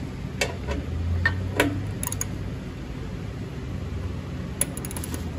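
A few scattered metallic clicks and clinks of a wrench being fitted onto the bolts of a chipper shredder's steel blade side guard, over a steady low hum.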